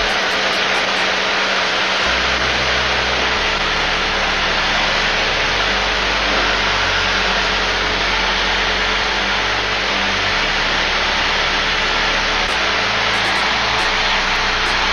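Steady drone of the Van's RV-10's piston engine and propeller in the climb, with the propeller pulled back to 2500 rpm, mixed with rushing airflow. It holds at a constant level throughout.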